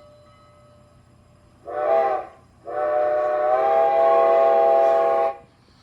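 Steam locomotive whistle played by a LokSound XL sound decoder through a small speaker in a model locomotive's boiler: one short blast about two seconds in, then a long, steady blast of about two and a half seconds.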